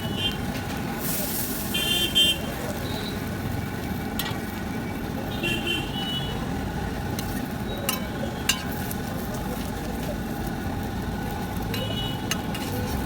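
Steady street traffic with a few short horn toots and occasional sharp clinks.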